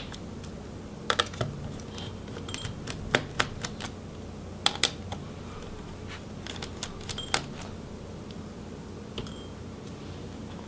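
Small Phillips screwdriver backing out the motherboard screws of a Dell Inspiron 14 7460 laptop: scattered, irregular sharp clicks and taps of the bit and screws on the board and metal chassis, over a faint low hum.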